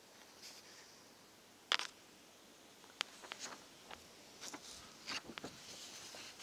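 Faint handling noise from a handheld camera moved over paper drawings: a few scattered sharp clicks, then a busier run of clicks and a soft rustle of paper about two-thirds of the way through.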